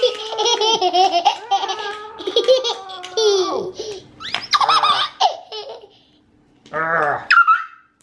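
A baby laughing in quick, high-pitched bursts for the first few seconds, then a short lull and one more brief laugh near the end.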